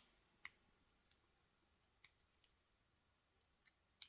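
Faint, scattered metallic clicks as a key is worked into a KIK lock cylinder, its pins clicking against the key. There are about half a dozen separate clicks, spaced irregularly.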